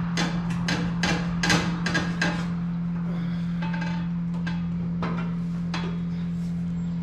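Sharp metal knocks and clanks as a chrome exhaust stack is worked loose and lifted off a John Deere 4555 tractor: a quick run of them in the first couple of seconds, then a few scattered ones, over a steady low hum.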